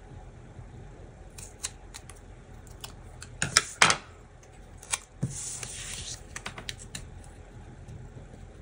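Scissors snipping paper several times in quick succession about three and a half seconds in, with scattered small clicks of handling before and after. Around the middle comes a second-long rustle of paper sliding across the tabletop.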